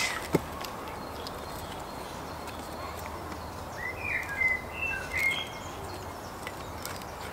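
Steady outdoor background noise with a few short bird chirps about four to five seconds in.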